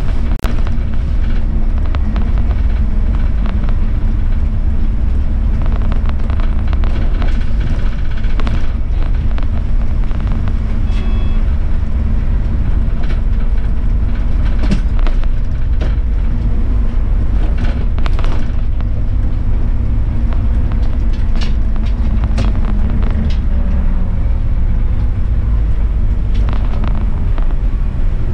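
City bus driving along a road: steady engine and road rumble with scattered rattles and clicks.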